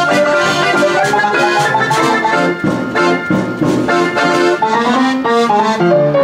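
Nickelodeon orchestrion player piano playing a lively tune, with piano and accordion over regular drum and percussion beats.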